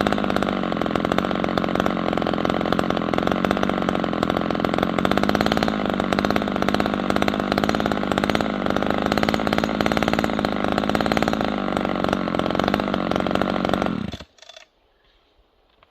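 Two-stroke chainsaw running at a steady, even speed, then shut off about 14 seconds in.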